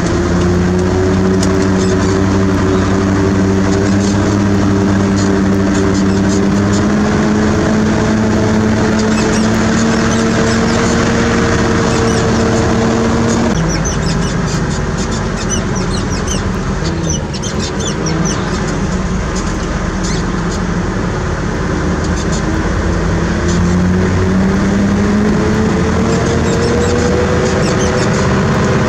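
Heavy diesel engine of earthmoving or haulage equipment running under load, its pitch slowly rising. The note changes abruptly about 13 s in, then climbs again in the last few seconds, with scattered light clicks through the second half.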